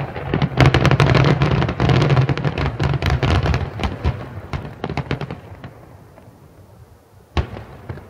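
Fireworks exploding in a rapid crackling barrage of many sharp bangs, which dies away after about five seconds. One more single loud bang comes near the end.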